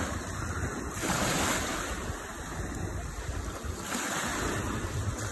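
Small sea waves washing up on a sandy beach and drawing back, swelling twice, with wind rumbling on the microphone.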